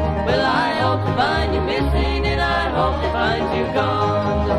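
Bluegrass band playing an instrumental break: a lead line that slides and bends between notes over acoustic guitar, banjo and upright bass.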